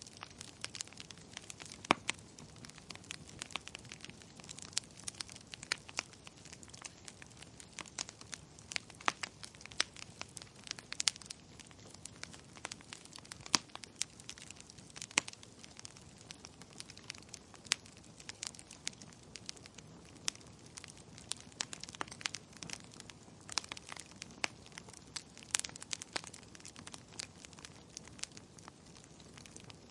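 Burning logs crackling: irregular sharp pops and snaps, a few much louder than the rest, over a faint even background hiss.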